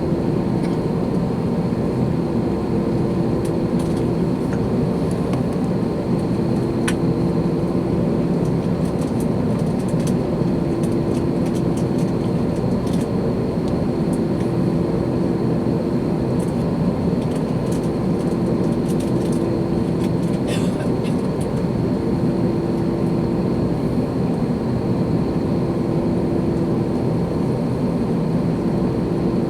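Airbus A321 cabin noise in flight: a steady drone from the jet engines and the rush of air along the fuselage, with a faint high steady whine and a low hum that swells and fades every few seconds.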